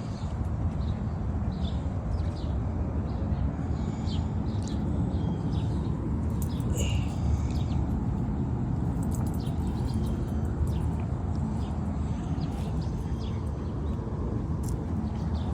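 Small birds chirping on and off, short high calls scattered throughout, over a steady low rumble of background noise.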